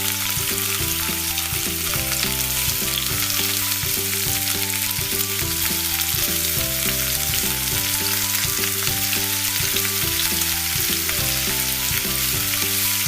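Lumpia spring rolls deep-frying in hot oil, a steady sizzle.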